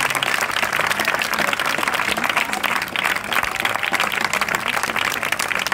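Audience applauding, a steady dense clapping, as a low held note of the tango music dies away at the very start.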